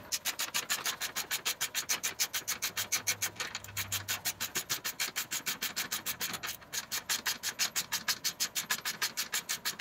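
A wrench backing off the 10 mm tensioner screw on a Ski-Doo R-Motion skid's rear idler: a steady run of rapid metallic clicks and rasps, about seven a second, as the screw is loosened all the way out.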